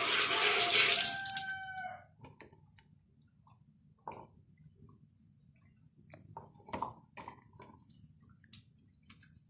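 Water running from a tap, then shut off about a second in, with a brief pitched whine as it closes. Afterwards only faint drips and small clicks.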